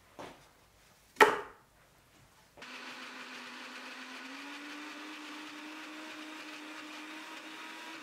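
A single loud thump about a second in, then an electric countertop blender starts and runs steadily, blending drained cheese curds; its motor hum rises slightly in pitch a couple of seconds after it starts.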